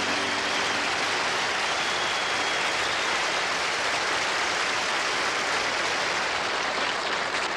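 Audience applauding steadily after a song, with the song's last held chord ending about a second in.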